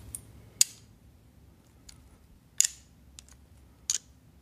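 A few brief clicks and rustles from handling a smartwatch's clip-on charging connector and its cable, with the connector seated on the back of the watch.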